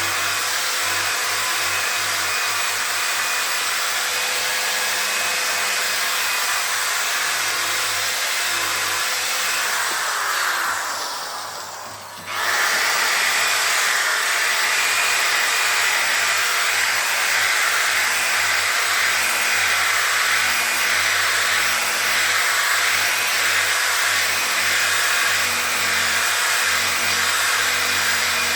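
Electric sander running steadily on a plastic headlight lens at 800 grit. About ten seconds in it winds down with a falling pitch, then starts up again abruptly about two seconds later and runs steadily on.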